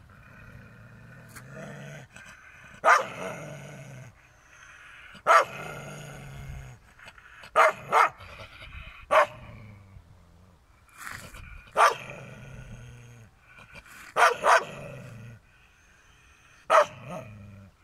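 Dog barking in sharp single barks and pairs, about ten in all, spaced a couple of seconds apart.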